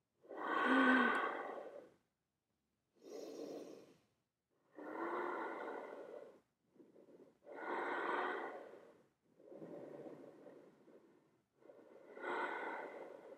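Heavy breathing from a person working at handstands: about seven long, forceful breaths in a row, a second or two each, the first the loudest, a couple with a short voiced hum.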